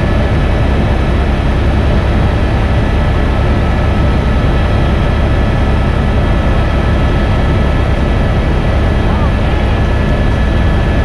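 Helicopter in flight heard from inside the cabin: a steady, loud low drone from the rotor and engine, with a thin steady whine above it.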